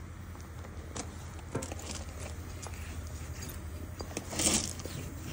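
Hand sanitizer gel being pumped from a pump bottle onto a tractor tire's bead and smeared along the rubber by hand, lubricating the bead for seating: a few small clicks and squishes, with a louder rubbing noise about four and a half seconds in. A low steady hum runs underneath.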